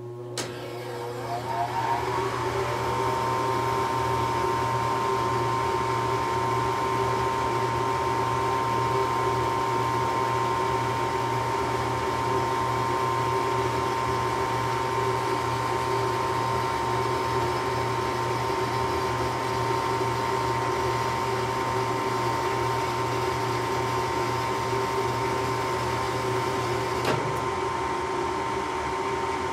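Furnace starting up: a hum and rush that builds over the first couple of seconds, then runs steadily with a few constant tones. A brief click comes near the end.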